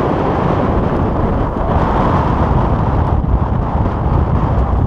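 Strong wind blowing across the microphone, a loud, steady rush with a deep rumble and no let-up.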